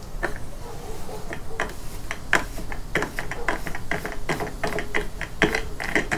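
Plastic fuel cap on a push mower's gas tank being twisted by hand, giving a series of irregular sharp clicks.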